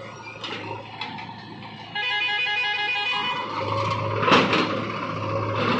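Diesel engine of a JCB 3DX backhoe loader running as it loads soil into a tractor trolley. About two seconds in the sound gets louder and a steady high tone sounds for just over a second. A sharp clank a little past the middle is the loudest moment.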